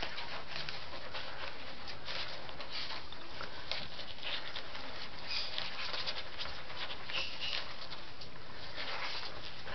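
Two-week-old Scottish terrier puppies nursing and squirming on newspaper: a continuous patter of small suckling clicks and paper rustling, with a few brief high squeaks.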